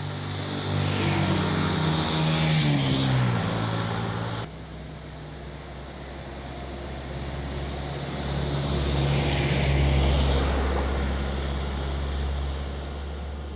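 Road vehicles passing: an engine whose pitch falls as it goes by, cut off abruptly about four and a half seconds in, then another vehicle's engine and tyre noise swelling and fading, loudest about ten seconds in.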